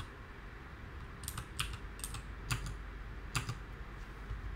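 Computer keyboard keystrokes: about seven separate key presses at an uneven pace as a short line of code is typed.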